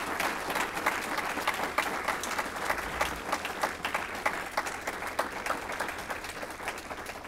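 Audience applauding, a steady round of many hands clapping that eases slightly near the end.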